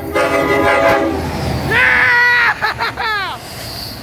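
Diesel locomotive's multi-note chime horn sounding in a horn show: a long blast that cuts off about a second in, a second blast about half a second later, then a couple of quick toots. Train rolling noise underneath.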